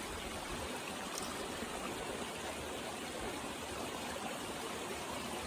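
Creek water flowing steadily over rocks, an even rushing and trickling.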